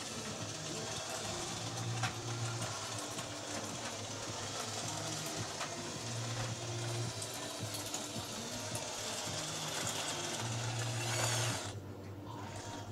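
Converted Bruder CAT D5G RC model dozer driving under load, its electric drive motors and gearboxes whirring and its tracks rattling on a concrete floor. A short rise in pitch comes just before the noise cuts off sharply near the end as the dozer stops.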